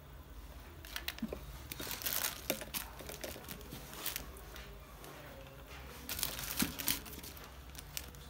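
Handling noise: plastic crinkling and rustling with scattered clicks and light knocks as a gas torch, a small wooden box and rubber hoses are picked up and moved about. It is busiest about two seconds in and again near the end.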